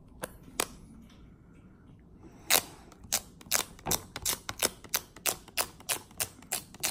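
An adhesive dust-absorber dabbed again and again on a phone's glass screen to lift dust, making short sharp clicks: two near the start, then a quick run of about three a second from about two and a half seconds in.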